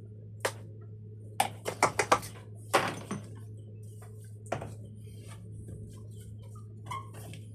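Hard tools clinking and tapping during the loading of a homemade sugar rocket: a quick run of sharp clicks about a second and a half in, a short scrape, then scattered fainter ticks. A steady low hum runs underneath.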